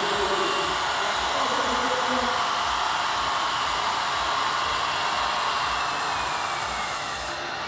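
Steady whirring hiss of a radio-controlled model truck driving on a show layout, with a faint whine that slowly drops in pitch toward the end.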